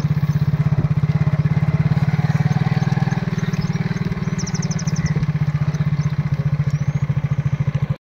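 Motorcycle engine running steadily at low speed, an even low pulsing throughout. A brief high trill sounds about four and a half seconds in.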